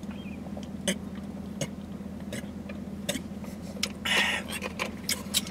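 Drinking from plastic sports-drink bottles: swallows and small sharp clicks about every three-quarters of a second, over a steady low hum. A short breathy exhale comes about four seconds in.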